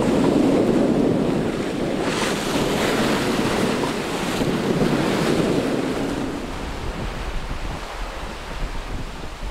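Rushing water and spray along the hull of an ocean racing yacht driving through choppy sea, mixed with wind buffeting the microphone. The wash surges loudest from about two to five seconds in and eases off after about six seconds.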